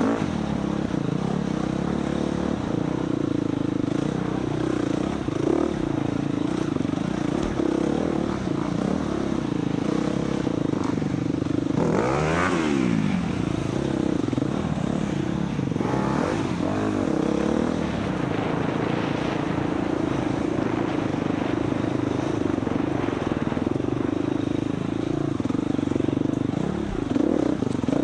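Dirt bike's four-stroke engine running steadily under load, with clattering from the bike. About halfway through, the revs climb sharply and drop back, and they flick up briefly again a few seconds later.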